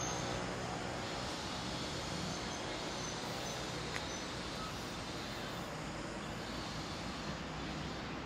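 Type 25T passenger coaches rolling past on the line, a steady rumble and hiss of wheels on rail heard from some distance. A single faint click about four seconds in.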